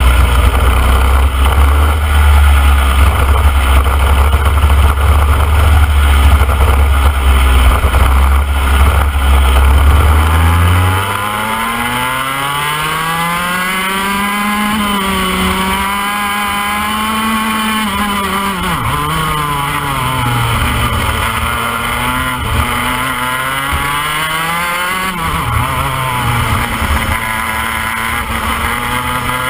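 IAME X30 125cc two-stroke kart engine heard from on board the kart. A loud low rumble covers it for about the first eleven seconds, then its note comes through clearly, rising and falling in pitch as the kart accelerates and lifts through the corners.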